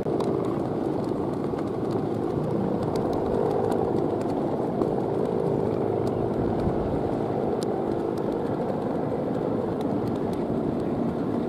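Steady humming drone of the guangan, the bow-shaped ribbon hummer rigged on a large Balinese kite, vibrating in the wind.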